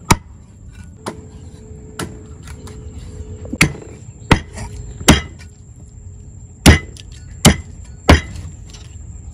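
A cleaver chopping a whole fish into steaks on a wooden chopping board: about nine sharp, uneven chops, with the hardest blows near the end.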